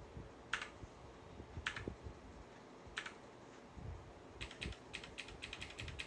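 Clicky blue switches of an Aula F2068 mechanical keyboard being pressed: three single key presses about a second apart, then a quick run of presses near the end.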